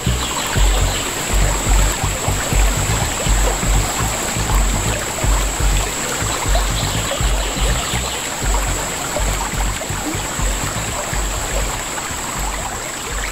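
Shallow river water rippling around a kayak drifting through a riffle, under repeated low thumps about once or twice a second and a steady high-pitched hum; it grows a little quieter near the end.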